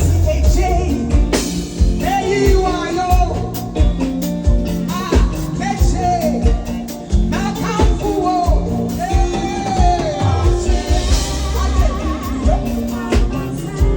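Loud music with a steady drum beat, heavy bass and singing.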